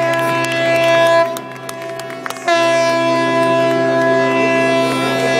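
Live music from wind instruments holding long sustained notes over a steady low tone. The held notes break off after about a second, then come back strongly about two and a half seconds in.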